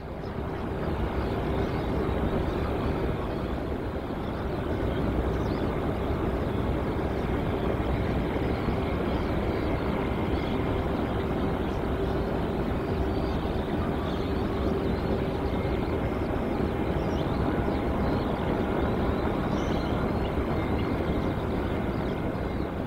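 Steady noise of distant airliner jet engines at an airport, a constant hum with a held whining tone and no rise or fall of a passing plane.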